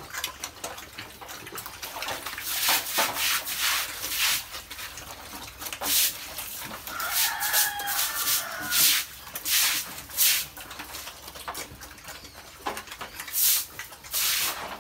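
Piglets eating wet feed from a tyre feeder: irregular wet slurping and smacking strokes. A short, high-pitched animal call about seven seconds in.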